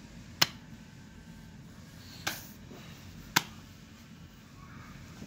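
Three sharp knocks, a second or two apart, from inside a Hatchimals toy egg: the toy's beak pecking at the shell as it hatches.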